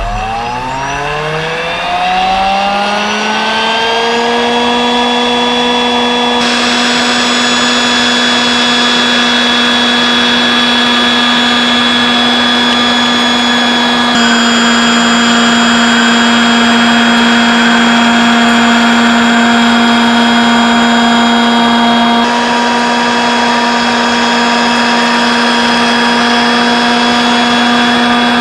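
Electric motor of a 1:15 RC Bucher CityFant 6000 street-sweeper model spinning up with a rising whine for about four seconds, then running at a steady high whine.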